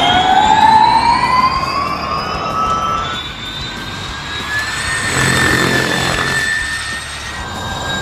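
Audi e-tron Formula E race car's electric powertrain, a high whine climbing in pitch as the car accelerates. About three seconds in it gives way to a steadier high whine, with a rush of passing noise around five to six seconds in.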